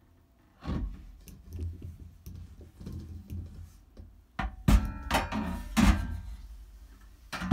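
Clear plastic arm port door of an anaerobic chamber being handled and slid into its metal door holder: a soft thunk about a second in, then a cluster of louder knocks and clatter with a brief ringing around the middle, and another knock near the end.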